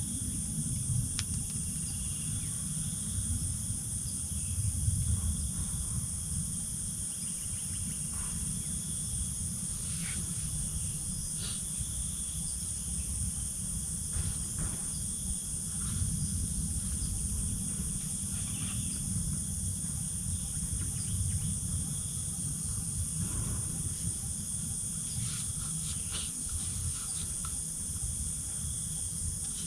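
A steady, high-pitched chorus of insects over a constant low rumble, with a few scattered light clicks.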